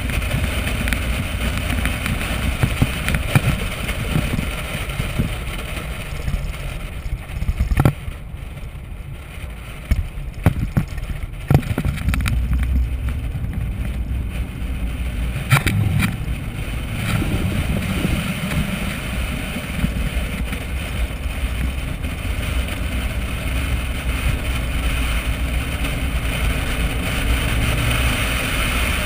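Corvette V8 running at moderate track speed, with wind rushing over a hood-mounted microphone. It goes quieter for several seconds about a quarter of the way in, then picks up again. A few sharp knocks sound in the middle.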